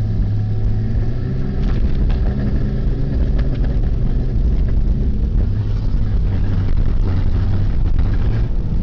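Engine running steadily with a misfire, its low even note broken by a few irregular sharp ticks.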